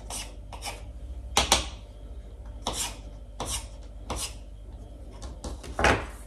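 Pelmeni dough being worked by hand on a floured board: about eight short scraping and rubbing strokes at an uneven pace, the loudest about one and a half seconds in.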